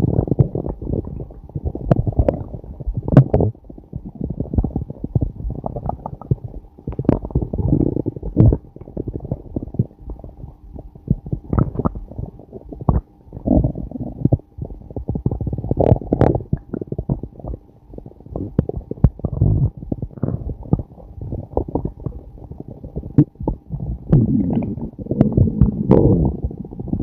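A person's stomach growling and gurgling in long, irregular rumbles with sharp bubbly pops, swelling louder several times, most of all near the end.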